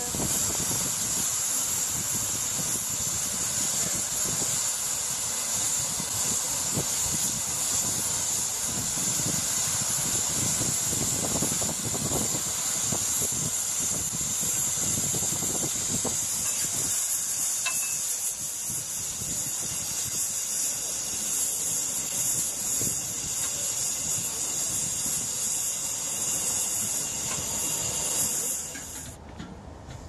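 Steady high hiss of steam from a steam ploughing engine, over a rough low rumble and scattered knocks from the cable-hauled plough and its gear. The hiss stops suddenly just before the end.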